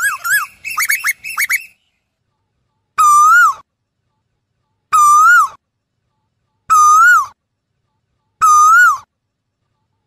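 Asian koel calling: a fast run of short whistled notes in the first second and a half, then four single, clear calls about every two seconds, each rising and then dropping away.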